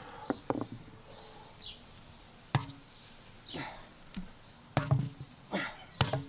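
About six sharp knocks and thuds at uneven intervals: a sledgehammer's steel head being handled against a worn car tire on paving stones.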